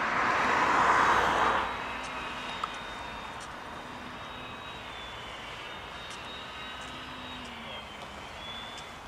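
Electric motor and propeller of a Multiplex FunCub RC plane whining in flight, its thin tone drifting up and down in pitch as it manoeuvres. A louder rushing noise covers the first second and a half.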